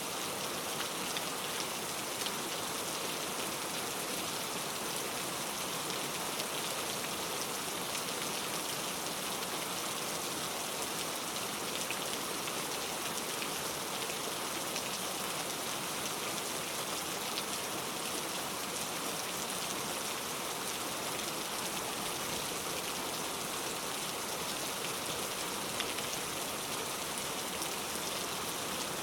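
Steady rain falling, with scattered single drops ticking through the hiss.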